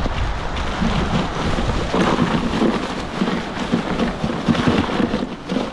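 Wind buffeting the microphone, with rustling and a few plastic knocks as a fish is put into a small plastic cooler.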